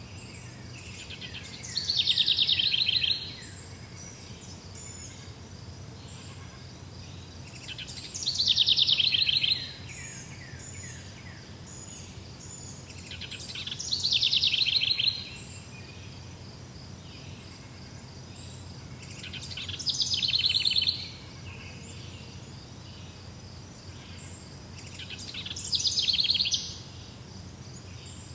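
A songbird repeating the same short, fast trilled phrase five times, about every six seconds, each phrase lasting about a second and a half. Insects chirp steadily and faintly in the background.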